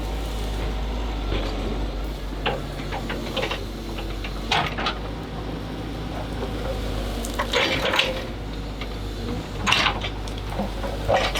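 Excavator at work, a steady low machine hum with irregular scraping and clattering as the bucket digs and dumps dirt and sand. The loudest clatters come about four and a half, seven and a half, and ten seconds in.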